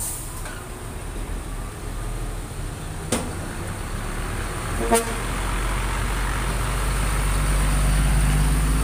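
Nissan Diesel CWM330 tractor unit's diesel engine pulling a container trailer past at low speed, growing louder as it comes close. A sharp clunk about three seconds in and a brief horn toot about five seconds in.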